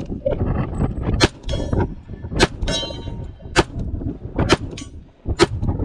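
.45 ACP pistol firing about five shots, roughly a second apart. After two of the shots a steel target rings briefly with a metallic clang.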